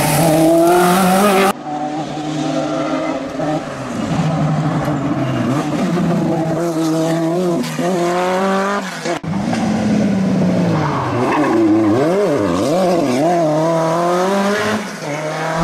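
Renault 5 Turbo Group 4 rally car's turbocharged four-cylinder engine running hard, its revs rising and falling repeatedly through gear changes and corners. The sound breaks off and changes abruptly twice, about a second and a half in and again past the middle.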